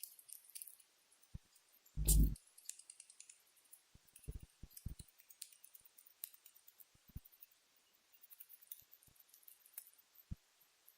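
Pet rat grinding and chattering its teeth: scattered small sharp clicks, with a few soft knocks and one louder thump about two seconds in.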